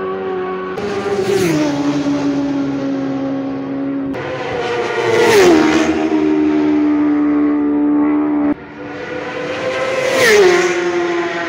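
Superbike racing motorcycles passing flat out one at a time, three passes, each engine's high steady note dropping sharply in pitch as the bike goes by, about a second, five seconds and ten seconds in.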